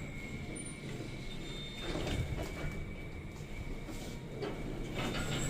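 Lift car doors sliding as they keep trying to close, over a steady low rumble from the lift. The rider takes this to mean the door-edge sensors aren't working.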